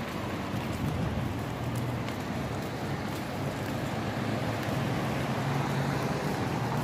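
Steady city street noise: a constant hiss of road traffic with a low engine hum underneath.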